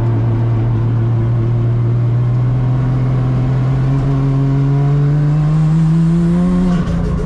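Toyota Chaser drift car's engine running under throttle, heard from inside the cabin: a steady engine note that climbs slowly in pitch over the last few seconds, then breaks briefly and drops in pitch near the end.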